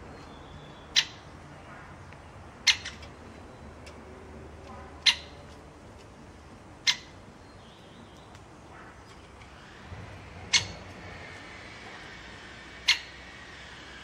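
Great spotted woodpecker making six sharp, short ticks, about one every two seconds, with faint birdsong behind.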